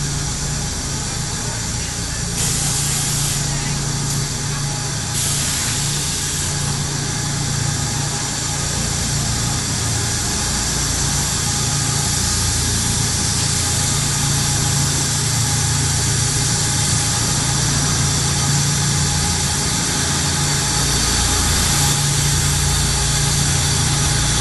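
Paper mosquito coil production line machinery running: a steady industrial drone with a constant low hum, and two short stretches of hiss a few seconds in.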